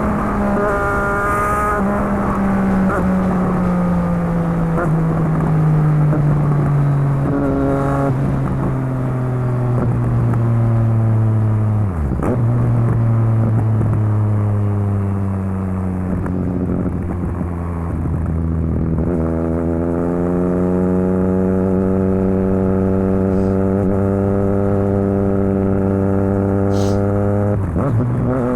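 Triumph Street Triple RS 765 cc three-cylinder engine running through a Yoshimura Alpha T exhaust with its dB killer fitted. It is heard on board while riding. The engine note falls slowly for about twelve seconds, breaks briefly there as if for a gear change, then holds low and steady, growing louder again after about twenty seconds.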